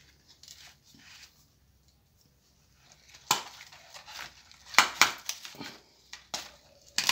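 Hand pruning shears cutting through a green mango branch: a sharp snap about three seconds in, then a cluster of crunching cuts a couple of seconds later.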